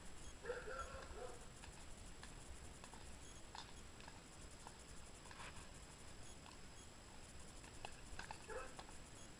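Faint, uneven hoofbeats of a horse walking on a soft forest track, with a brief faint squeak about half a second in.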